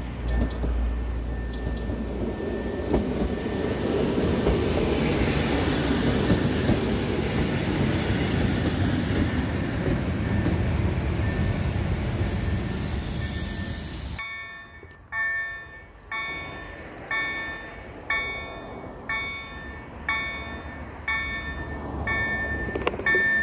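Polregio EN57 electric multiple unit passing close: a loud rolling rumble of wheels on rail, with high wheel squeals over it. About two-thirds through the sound cuts off suddenly and is replaced by a ringing signal repeating about once a second, over a low rumble.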